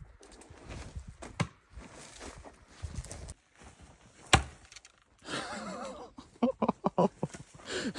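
A homemade knife-blade spear thrown into a burnt tree trunk: one sharp, loud thunk about four seconds in, after scuffing steps. It is followed by a string of short excited yelps and whoops.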